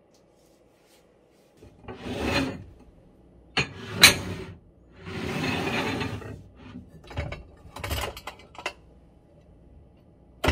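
Ceramic plates and bowls being slid out and lifted off a shelf dish rack: a few scraping rubs of dishware over the rack and shelf, broken by sharp clinks, the loudest about four seconds in and another near the end.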